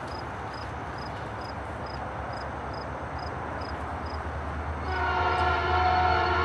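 Norfolk Southern diesel freight locomotives rumble as they approach. About five seconds in, the lead unit's five-chime air horn starts and holds a loud, steady chord.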